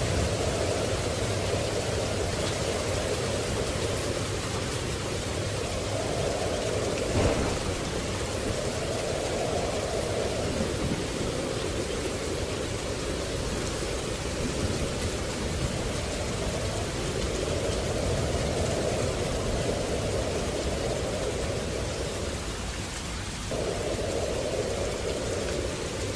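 Steady rain with a low thunder rumble beneath it, the rain's sound swelling and easing every few seconds. One short sharp crack about seven seconds in, and the sound dips and then jumps back abruptly near the end.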